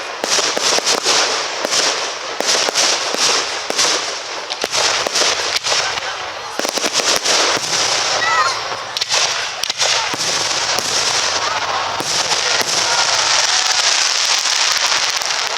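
Aerial fireworks display: a rapid, continuous series of bangs and pops, with dense crackling that thickens toward the end.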